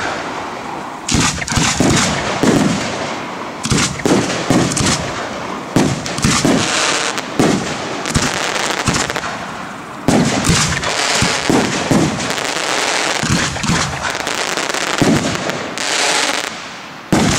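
Aerial firework shells bursting in quick succession: many sharp bangs close together over a continuous hiss and crackle of burning stars, with a denser run of bangs about ten seconds in.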